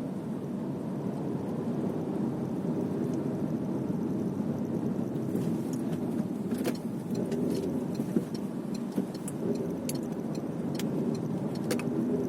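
Car interior noise while driving: steady road and engine hum. Irregular sharp ticks are scattered through the second half.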